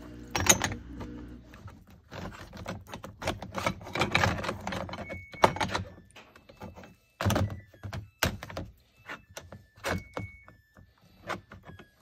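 Rusty steel hand tools (combination squares, a ball peen hammer) knocking and clinking against each other and a plastic tub as they are shifted around in a bath of rust-remover liquid. The knocks are irregular, bunched in the first half and then more spaced out, with a couple of brief metallic rings.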